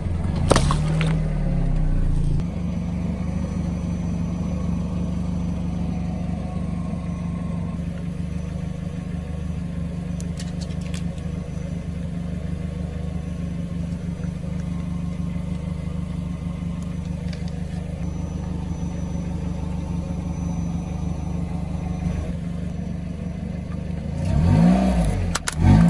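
Car engine idling steadily, revving as the car rolls forward in the first couple of seconds and again near the end. A sharp crunch comes about half a second in and another near the end as the tyre runs over the objects in its path, a juice carton and then a smartphone.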